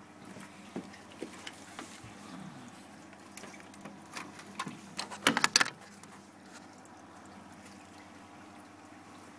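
Water running and trickling through a home-built marine aquarium's overflow plumbing into the sump, over a steady low hum. About halfway through comes a quick run of loud, sharp clicks and knocks.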